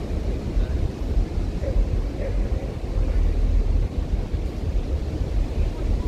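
Ocean surf rushing steadily on a beach, under a heavy low rumble of wind buffeting the microphone.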